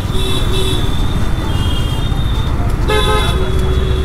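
Vehicle horns honking in slow city traffic: a short blast near the start and a longer one held from about three seconds in. Underneath runs the steady low rumble of a Honda CBR 150R's single-cylinder engine and road noise.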